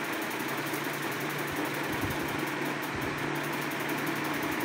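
Steady machine hum and whir, like a small motor running, with a low even drone.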